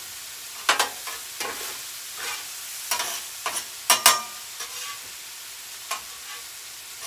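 Food sizzling on a Blackstone flat-top griddle, a steady hiss, with a handful of sharp scrapes and clicks of a metal spatula on the steel cooktop, the loudest about four seconds in.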